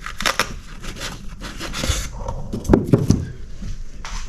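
Hands handling a soft-sided fabric drawer under a kayak seat: rubbing and scraping, a few sharp clicks near the start, a brief rasping swish about two seconds in, and a couple of dull knocks about three seconds in.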